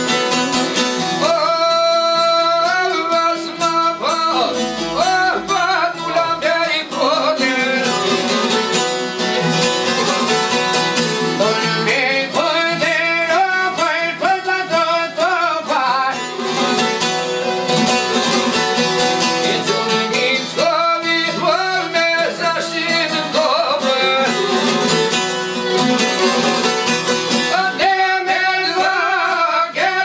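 Albanian folk song: a man singing in long bending phrases over a bowed violin and plucked çifteli long-necked lutes, with instrumental passages between the sung lines.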